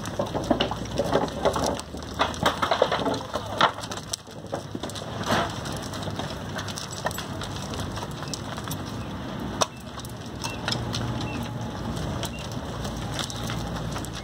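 Hooves of young crossbred steers crunching and scuffing on the dry dirt floor of a corral as the animals shuffle about: irregular crunches and knocks, dense for the first several seconds, then sparser, with one sharp knock about ten seconds in.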